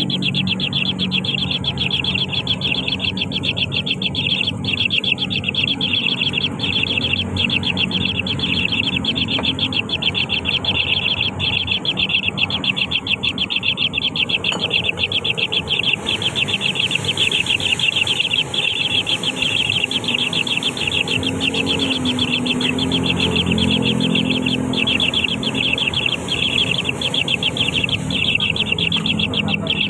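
Nestling birds begging with a rapid, unbroken stream of high chirps, over a low rumble.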